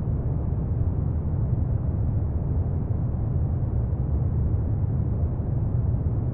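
Steady, deep rumbling noise, even throughout with no distinct sounds or melody: a low ambience noise bed for sleep.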